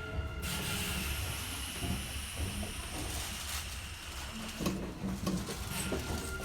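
Compressed air hissing out from the underfloor equipment of a Kintetsu 9020 series train standing at a station, over a steady low hum. The hiss swells about half a second in and fades after about three seconds. It is the abnormal, continuous air-escaping noise that the rider heard whenever the train was stopped.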